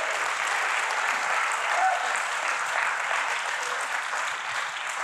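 Church congregation applauding steadily.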